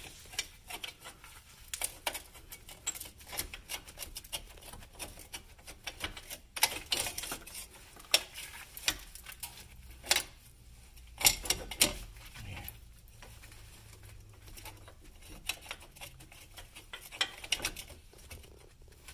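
Irregular light metallic clicks and clinks of bolts and hand tools being handled as the hub bearing's mounting bolts are started by hand, with a few sharper knocks among them.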